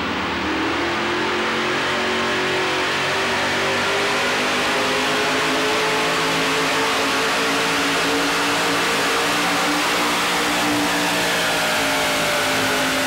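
Modified 4x4 Chevrolet pulling truck's engine at full throttle, revving up about half a second in as it launches, then held at high revs under heavy load while it drags the pulling sled.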